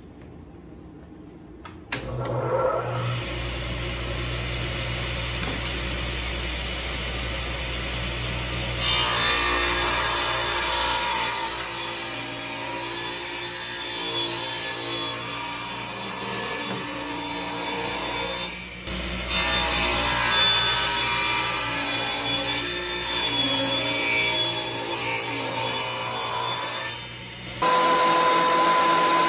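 Ridgid table saw starting up about two seconds in and running, then ripping a bubinga board from about nine seconds on, the blade noise louder and rougher while it cuts. Near the end a benchtop thickness planer starts, with a steady whine.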